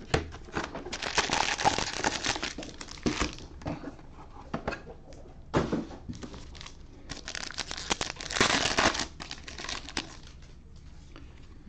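Foil trading-card pack wrappers crinkling and a pack being torn open, in bursts of crackly rustling: a long burst about a second in, a short one near the middle, and another from about seven to ten seconds in.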